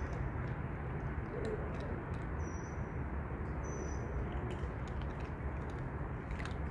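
Small birds chirping briefly, twice, over a steady low outdoor rumble, with a few faint clicks.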